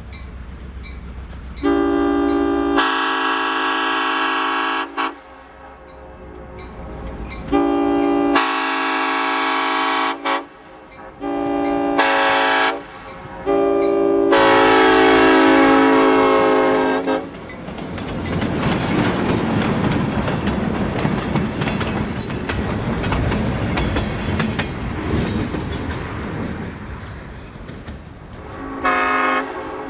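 Nathan M5 air horn on an EMD F7 locomotive sounding a sequence of blasts for a grade crossing: two long, two short, then one held about three seconds. The locomotives and cars then pass close by, with diesel engine noise and wheels clattering over the rail joints.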